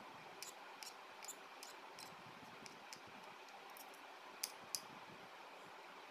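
Faint, sharp clicks of metal plaster instruments (spatula and knife) tapping and scraping against a ceramic tile and the mixing bowl while shaping a plaster cube. The clicks come two or three a second at first, then thin out, and two sharper clicks fall about four and a half seconds in, over a steady faint hiss.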